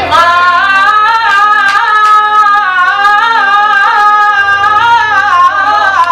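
A man singing an Iraqi mawwal, drawing out one long, wavering melismatic line without breaks for words, over a faint low steady accompaniment.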